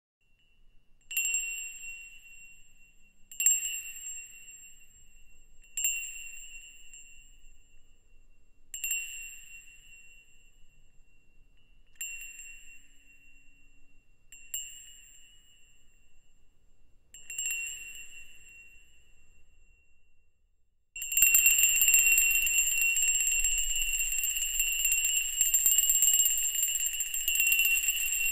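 A small metal bell struck seven times, a couple of seconds apart, each stroke ringing out and dying away. About 21 seconds in it breaks into continuous, louder ringing like an alarm-clock bell.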